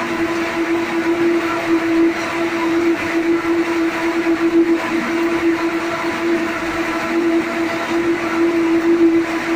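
Ring spinning frames in a spinning mill running at speed: a loud, steady machine drone with one strong constant hum tone over an even whirring hiss.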